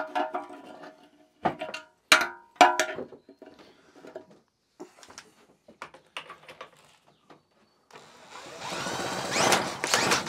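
Metal clinks and knocks with a brief ring as parts of the old British Seagull outboard are handled, then sparse faint clicks. Near the end comes a loud whirring that rises and falls in pitch.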